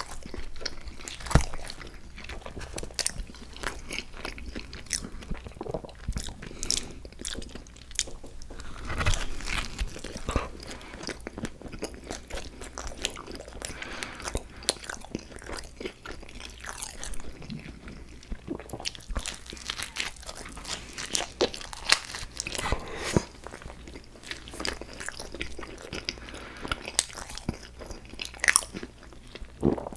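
Close-miked eating: a person biting and chewing, with irregular crunchy clicks and smacks throughout and a few louder bites.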